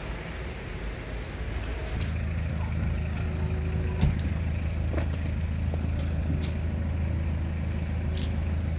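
Steady low rumble of a running vehicle that gets louder about two seconds in, with scattered light clicks and one sharp knock about four seconds in.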